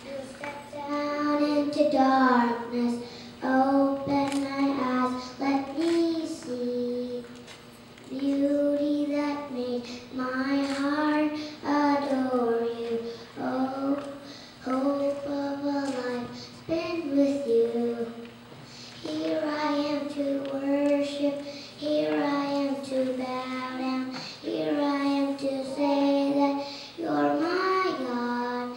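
A young boy singing a song solo into a microphone, in phrases of a second or two with short breaks for breath.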